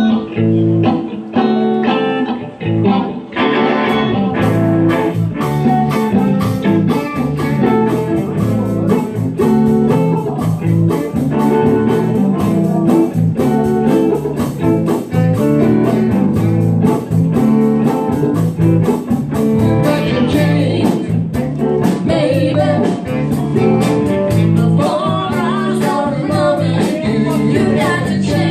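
Live blues-rock band playing loud: electric guitars and bass guitar, with a voice singing, heard through a phone's microphone. Drums and cymbals come in strongly about four seconds in.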